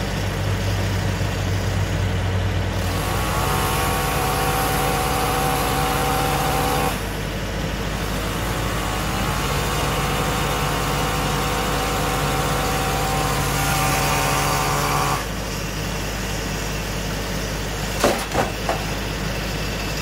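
Engine running steadily. It is revved higher for two stretches of several seconds each, rising in pitch and then dropping back sharply. A few sharp knocks come near the end.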